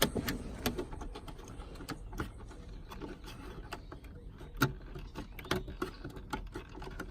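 Scattered plastic clicks, taps and rattles of wiring-harness connectors being handled and pushed together, with sharper knocks at the start and about four and a half seconds in.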